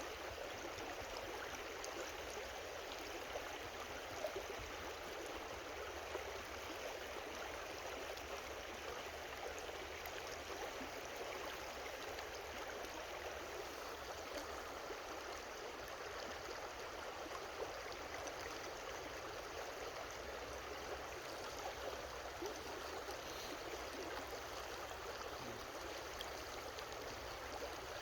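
Steady babbling of a shallow creek, an even rush of flowing water.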